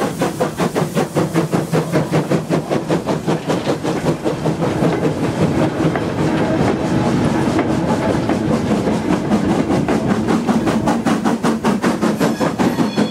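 Steam locomotive and its train of wagons passing close by: a steady, rapid beat, about five a second, over the rumble of wheels on the rails.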